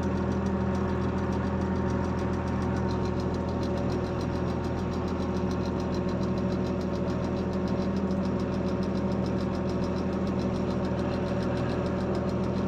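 Diesel engine of heavy road-repair machinery running at a steady, even speed, with no change in pitch or level.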